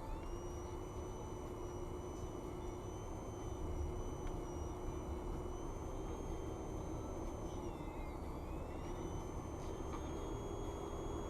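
Vehicle running with a steady low rumble, a hum and a thin high-pitched whine. The whine drops in pitch about two-thirds of the way through, then climbs back. It is an abnormal noise from the vehicle.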